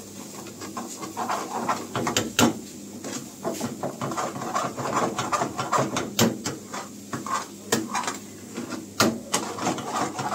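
Steel ladle stirring thick curry gravy in a metal pan, clinking and scraping against the pan every second or so over a continuous low sizzle of the simmering gravy.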